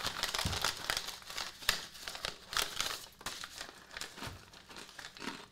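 Plastic snack pouch crinkling as it is handled, in loose irregular crackles that are busiest in the first half.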